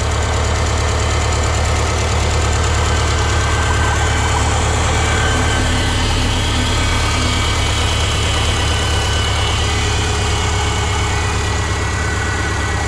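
Subaru Legacy's EJ203 naturally aspirated flat-four engine idling steadily with no extraneous noises. The revs hold even and do not hunt, the sign of a healthy engine.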